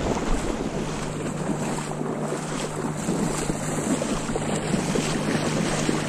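Steady splashing and sloshing of shallow marsh water; near the end a retrieving dog plunges through the water close by.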